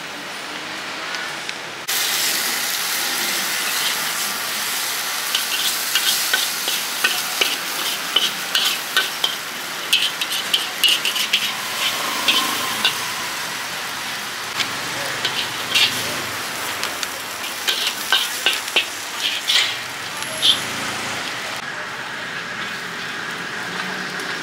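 Pad Thai frying in a hot pan. A loud sizzle starts suddenly about two seconds in, as food goes onto the hot surface. A spatula stirring it clacks and scrapes against the pan many times, and the sizzle eases near the end.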